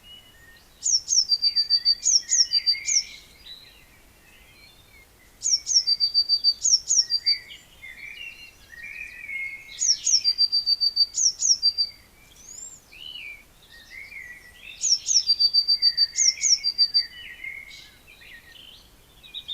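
Songbirds singing in woodland. One bird repeats the same phrase of about two seconds four times, roughly every four and a half seconds: quick high down-slurred whistles and a run of rapid notes. Softer, lower warbling from another bird fills the gaps.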